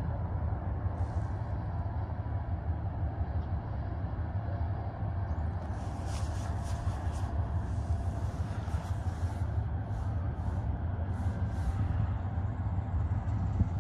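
Low, steady engine rumble from a bulk carrier ship passing on the river, heard across the water. Between about six and twelve seconds in, several short hissy bursts come and go.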